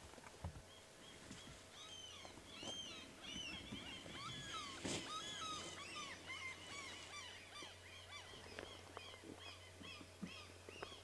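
Many small birds chirping and twittering at once, short rising and falling calls overlapping, busiest in the middle. A few faint knocks sound among them.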